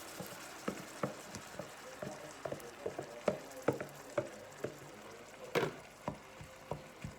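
Courgette frying in a pan with a steady sizzle, while a utensil stirring it knocks against the pan in irregular clicks, about two or three a second, with a louder clatter about five and a half seconds in.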